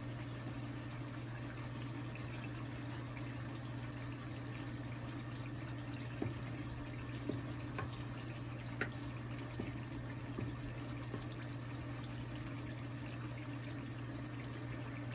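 Chicken roast simmering in its sauce in a pan on low heat, with a few faint taps and scrapes of a wooden spatula stirring it, over a steady low hum.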